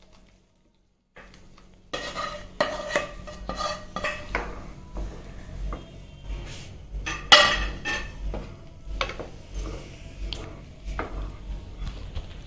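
A plastic spatula scraping and stirring sambar in a nonstick pan, with repeated clinks and scrapes against the pan. It starts after about a second and a half of silence, and the sharpest knock comes about seven seconds in.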